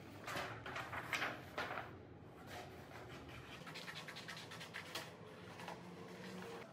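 A large sheet of drawing paper rustling and crackling as it is lifted and turned. There are several loud rustles in the first two seconds, then softer scratchy paper handling sounds.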